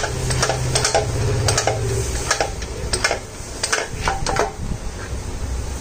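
Kick-start mechanism on a Honda Activa's removed transmission cover worked back and forth by hand, its lever, shaft and ratchet giving quick runs of metallic clicks and rattles that thin out near the end. A low hum underneath stops about two seconds in.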